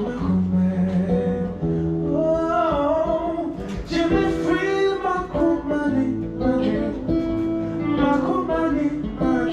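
A singer and a guitar performing a song together: guitar chords held and changed under a sung melody.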